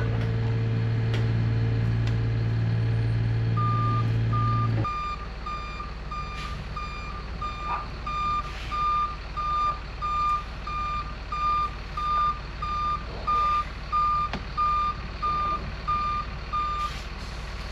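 A vehicle's backup alarm beeping steadily on one high tone, about one and a half beeps a second. A steady low engine hum underneath cuts off about five seconds in.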